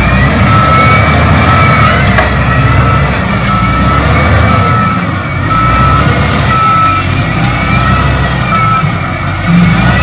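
Shantui wheel loader backing up, its diesel engine running steadily under a reversing alarm that beeps about once a second and stops shortly before the end.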